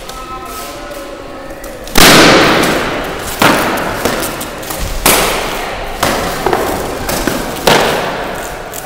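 Weapons striking in a fencing-style bout: about seven sharp, loud hits at irregular intervals, each with a long echoing decay.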